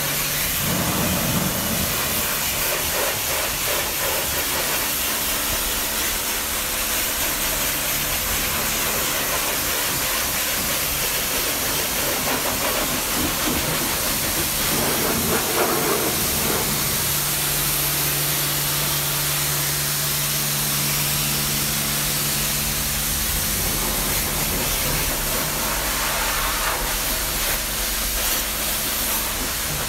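Pressure-washer jet spraying water onto a car's bodywork: a steady, loud hiss, with a low steady hum underneath.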